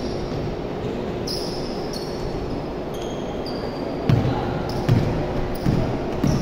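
Basketball being dribbled on a hardwood gym floor, a few bounces in the last couple of seconds, with sneakers squeaking on the court.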